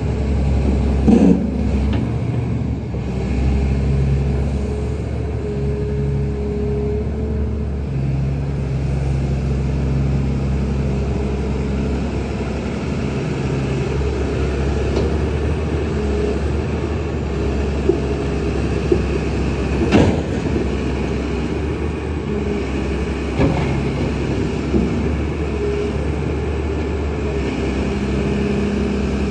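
Sany SY365H crawler excavator's diesel engine running steadily as the machine swings and lowers its boom. A few sharp knocks come through, the loudest about twenty seconds in.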